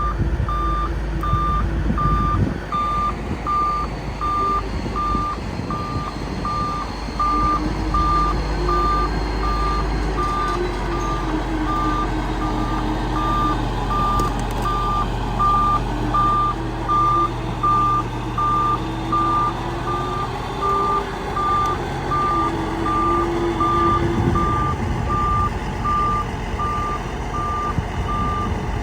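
Reversing alarm on a bulldozer, sounding steady, evenly spaced beeps at one pitch, over the dozer's diesel engine, which rises and falls in pitch as it works.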